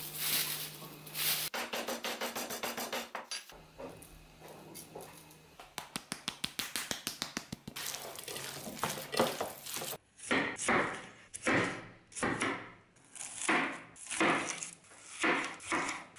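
Kitchen prep sounds: rustling of a plastic bag and handling of raw pork, with runs of quick tapping. About ten seconds in comes a long knife slicing an onion into rings on a wooden cutting board, in regular strokes about one and a half a second.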